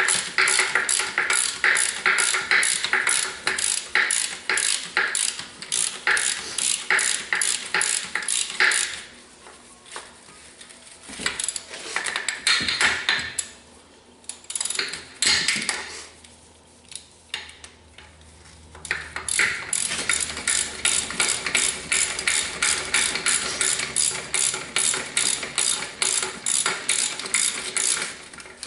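A hand ratchet clicking in steady strokes, about three clicks a second, working a skid steer's track tighter. It stops for about ten seconds partway through, with a few scattered knocks, then resumes.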